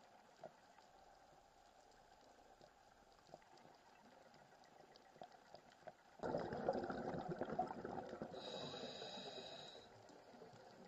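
Underwater, a scuba diver's exhaled breath bubbling out of the regulator: a sudden rush of bubbles starts about six seconds in and lasts about four seconds. Before it there is only faint underwater hiss with scattered small ticks.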